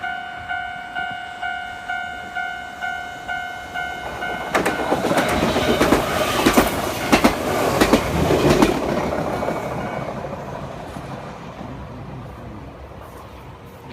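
Japanese level crossing alarm dinging about twice a second. At about four seconds a limited-express train arrives and runs through the crossing, its wheels clacking over the rail joints. Its noise then fades away over the last few seconds.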